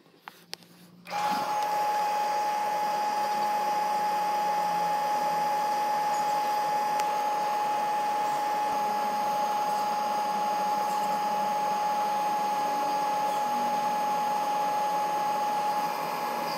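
A couple of faint clicks, then the Bestway sand filter pump's electric motor starts about a second in and runs steadily with a constant high whine, stopping abruptly at the end.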